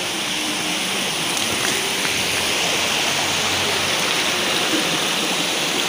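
Shallow rocky stream rushing over stones, a steady hiss that grows slightly louder.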